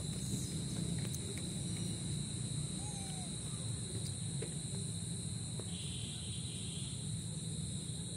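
Steady insect chorus: a continuous high, shrill buzz that holds unbroken, with a faint short call or two.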